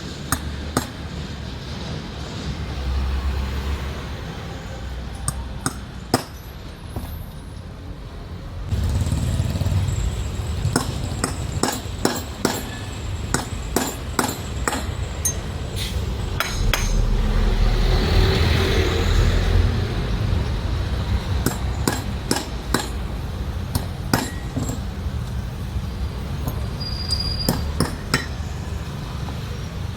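A hammer striking metal: irregular sharp taps and clinks over a low steady rumble that grows louder about nine seconds in.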